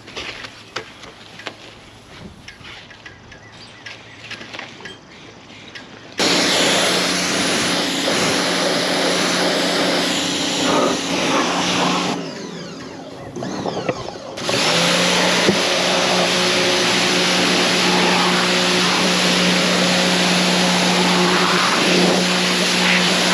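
Pressure washer starting up about six seconds in and spraying with a steady motor hum under a loud hiss of water. It cuts out for about two seconds past the middle, then starts again and runs steadily. Before it starts there are only light clicks and handling noises.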